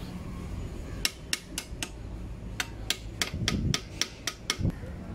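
A hammer taps the brake pad retaining rod home through a motorcycle's rear brake caliper, because the rod would not seat by hand. There are about a dozen sharp light taps starting about a second in, a few spaced out and then a quicker run.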